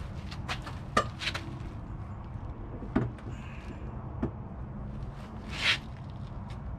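Composite intake manifold being set onto an LS V8's cylinder heads: a few light knocks and clunks as it is handled and shifted into place, then a short scraping slide near the end.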